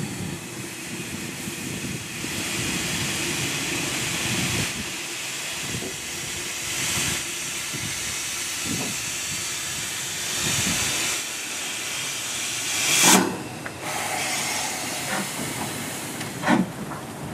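Steam hissing steadily from a BR 2MT 2-6-2T steam tank locomotive standing in steam, with steam escaping low at its front end, and one loud, sharp burst of steam about 13 seconds in. A few short knocks near the end.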